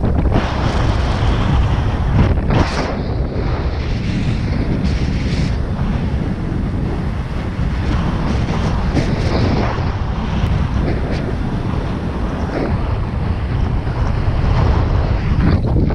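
Airflow in paraglider flight buffeting the camera's microphone: a steady, loud rumbling wind noise with brief gusty swells.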